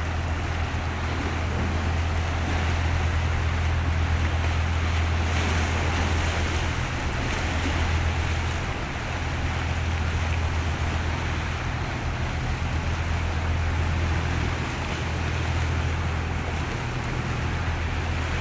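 Low, steady drone of boat engines across the water, with an even hiss of waves and wind over it; the drone dips briefly about nine seconds in.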